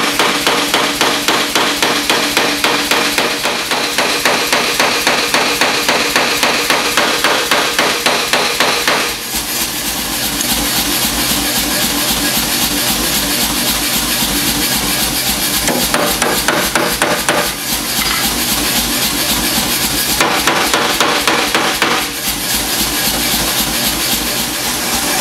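Hand hammer striking a red-hot mild-steel spatula blade on a steel block held in a vise: rapid, steady blows, several a second, flattening the blade. About nine seconds in, a steady low rumble joins the blows.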